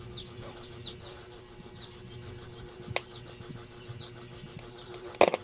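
Faint repeated bird chirps over a steady low electrical hum, with a sharp click about three seconds in and a few sharp clicks near the end as a test wire makes contact on the radio's speaker circuit.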